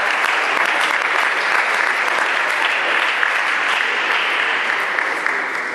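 Spectators applauding after a table tennis rally: steady, dense clapping that eases slightly near the end.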